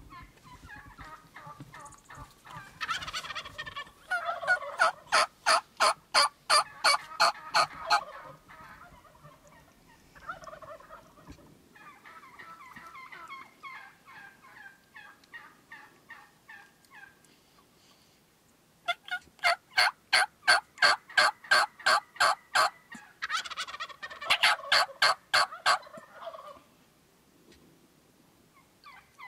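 Wild turkey calling: two long runs of loud, evenly spaced yelps at about three a second, with softer, quicker clucking between them.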